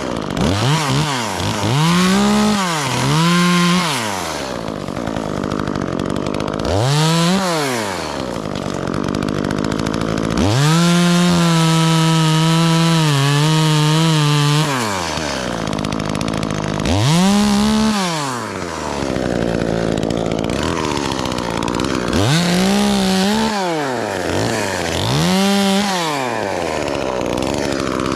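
Chainsaw revved in about six bursts with idling between, the longest held at full throttle for about four seconds in the middle, as it cuts into a pine tree.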